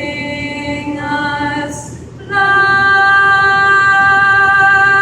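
Student choir of female voices singing a cappella: two shorter notes, then from about halfway in a loud, long held note.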